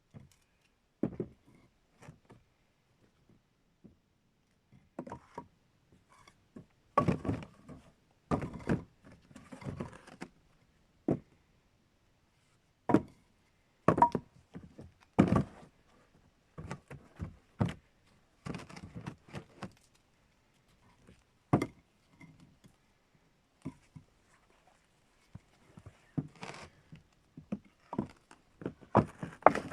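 Irregular wooden knocks and thuds, some followed by brief rustling, coming at uneven intervals, with a denser cluster near the end.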